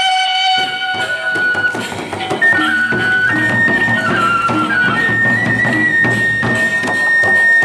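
Bamboo suling flute playing a slow melody of long held notes that step up and down, ending on one long sustained note. Gendang beleq drums and percussion play underneath.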